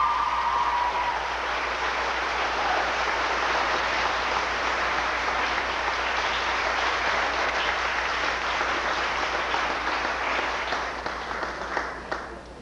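Audience applauding, a steady dense clapping that thins out near the end into a few last claps.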